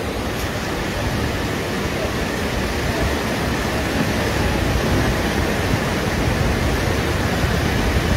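Steady rushing of fast-flowing, muddy floodwater surging through a street.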